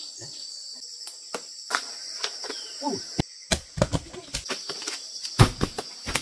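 Steady high-pitched chorus of insects shrilling. From about halfway, a run of sharp clicks and knocks cuts across it, the loudest a second before the end.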